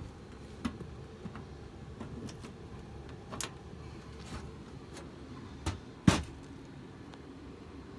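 Sheet-metal furnace access panels being handled and taken off: scattered knocks and clanks, the loudest about six seconds in, over a steady low hum.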